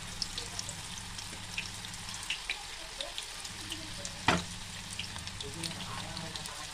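Manchurian balls deep-frying in hot oil: a steady sizzle dotted with small crackles, as more balls are dropped into the pan one by one. A single sharp knock sounds about four seconds in.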